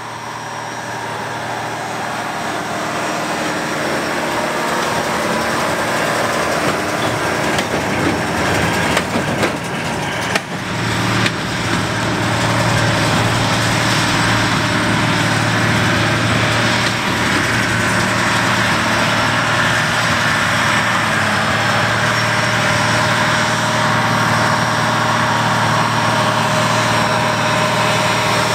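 Deutz-Allis 9170 tractor's diesel engine running steadily under load while pulling a Hesston 4760 big square baler, growing louder over the first few seconds as it draws near. A few short sharp clicks come through about eight to ten seconds in.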